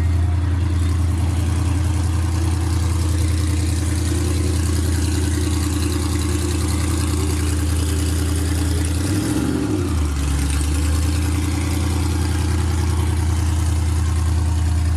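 Car engine idling close by with a steady, deep rumble; its pitch dips and comes back once about nine seconds in.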